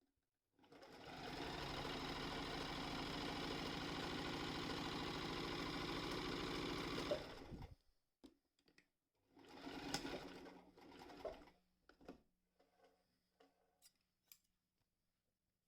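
Toyota 221 sewing machine spinning up and running at a steady speed for about seven seconds, then stopping. A second, shorter run of about two seconds follows, then a few scattered clicks and knocks.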